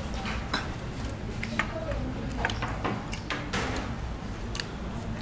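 Eating at a table: scattered sharp clicks and taps of utensils and dishes, over a steady low background hum.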